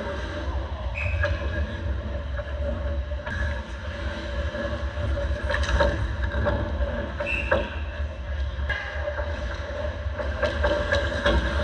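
Ice hockey play at the net: skate blades carving and scraping the ice with brief squeals, and several sharp clacks of sticks and pucks as shots come in and are stopped, over a steady low rumble.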